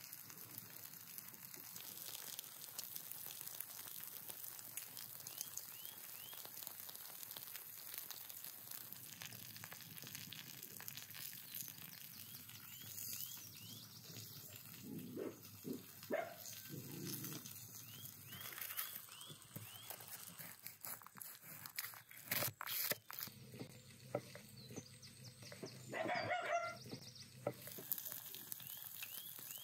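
Vegetable slices sizzling on a hot stone slab over a wood fire, a steady hiss, with a few sharp clicks about two-thirds of the way through and a short louder sound near the end.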